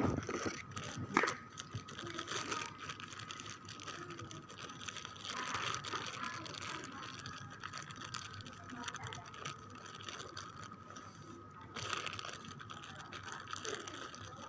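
Handling sounds as a herbal drink is packed into a plastic bag: irregular small clicks and rustles, with a sharp knock right at the start and another about a second in.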